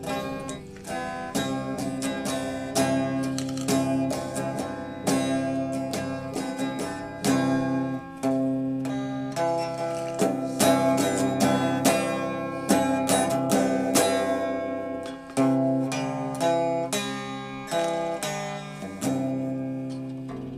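Instrumental music on plucked strings: single notes plucked one after another, each ringing and fading, over sustained low notes.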